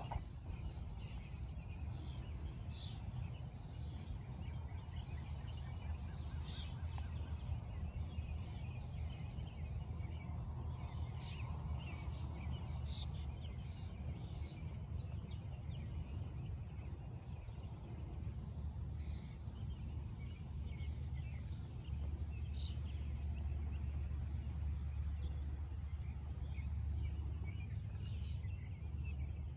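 Wind buffeting the microphone as a steady low rumble, stronger in the last third, with small birds chirping and calling throughout.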